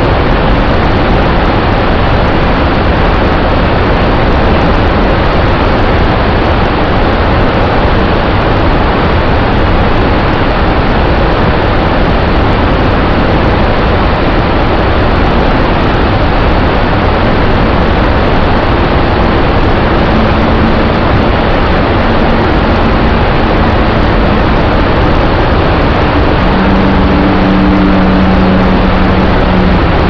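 Waterfall in spate, heavy muddy water crashing down over a rock ledge: a loud, steady rush of falling water with a deep rumble underneath.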